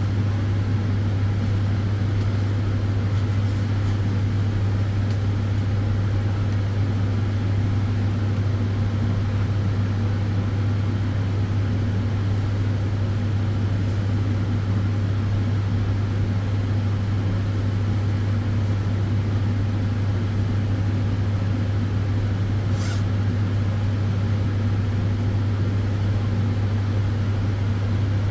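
Solarium sunbed running: a strong, steady low hum under the even rush of its cooling fans, unchanging throughout.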